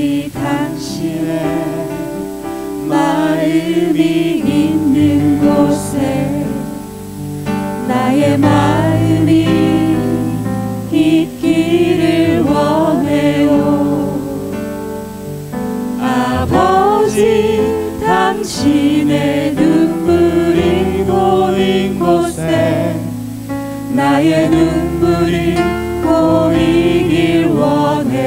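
Mixed vocal group of four singing a Christian worship song together, with instrumental accompaniment.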